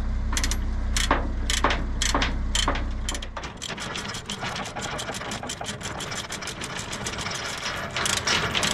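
Ratchet tie-down strap being cranked tight, its pawl clicking, slowly at first and then several clicks a second from about three seconds in. A steady low hum underneath cuts off about three seconds in.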